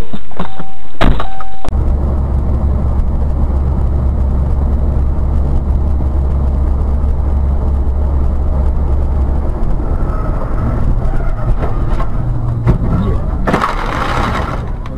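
A very loud, distorted sound cuts off suddenly about a second and a half in. It gives way to a road vehicle running, a steady low drone of engine and road noise, with a short harsh burst of noise near the end.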